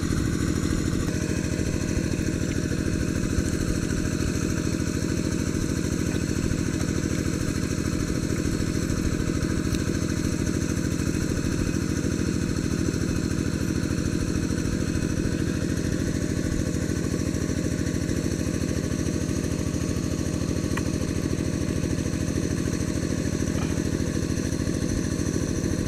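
Small engine running steadily at a constant speed, the engine of the water pump that drains the pond.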